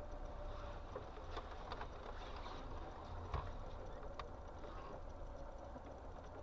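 Cabin noise picked up by a car dashcam in slow traffic: a low, steady rumble of engine and road, with a few light clicks and one sharper knock a little over three seconds in.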